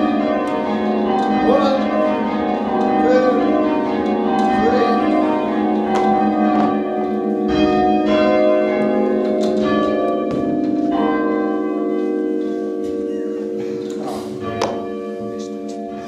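Ring of church tower bells rung full-circle in change ringing, heard from the ringing chamber below: a steady run of overlapping bell strikes, each tone hanging on under the next. After about eleven seconds the strikes thin out and the sound slowly fades.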